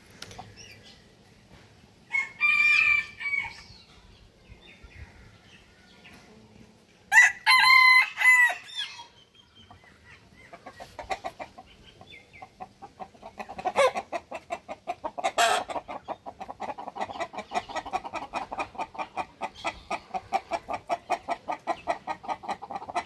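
A rooster crowing twice, the second crow louder, followed by a long run of rapid, even clucking, several clucks a second.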